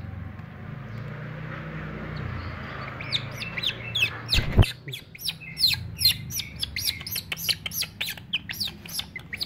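A hand-reared baby animal giving high-pitched chirping squeaks, a quick run of short calls that fall in pitch, several a second, starting about three seconds in. Before the calls there is a soft rustling hiss, and a single thump comes in the middle.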